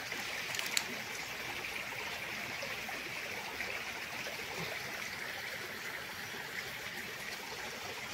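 Shallow stream trickling over stones: a steady rushing hiss of running water, with one small click a little under a second in.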